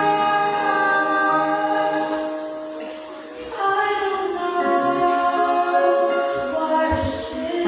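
Two women singing a Christian song as a duet into microphones, holding long notes; the singing drops away briefly about three seconds in between phrases, then carries on.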